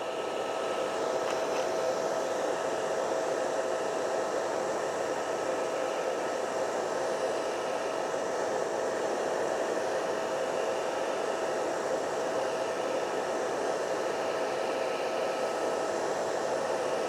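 Hair dryer blowing steadily, an even whirr with a faint steady whine, heating the iPad's screen adhesive so the glass can be pried off.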